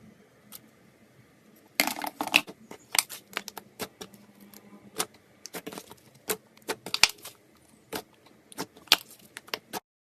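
An irregular run of sharp, crisp clicks and crackles from a slime-filled stress ball being cut open and handled. It starts about two seconds in and stops abruptly just before the end.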